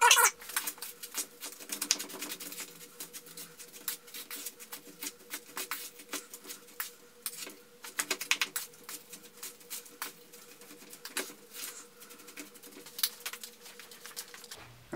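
A spoon stirring wet granulated sugar in a metal mixing bowl: irregular gritty scrapes and clinks against the bowl as the sugar-and-water candy mix is worked together. A faint steady hum runs underneath.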